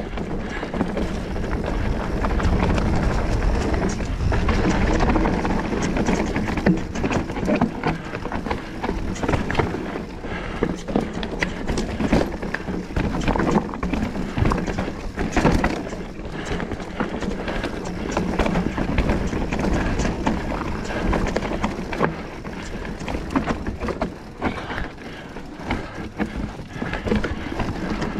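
A mountain bike rattling down a rough, rocky trail: tyres crunching over rocks and roots, with constant clatter and knocks from the frame, chain and suspension.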